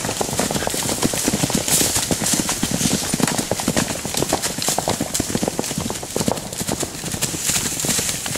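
Hoofbeats of several ponies trotting past one after another on a dirt track covered in dry fallen leaves: a dense, uneven patter of hoof strikes.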